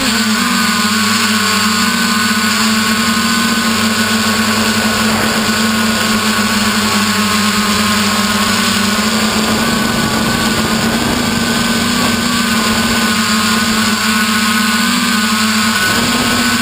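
Multirotor drone's electric motors and propellers whining at a steady pitch in flight, heard close up from a camera mounted on the frame. The pitch dips briefly about half a second in and again near the end.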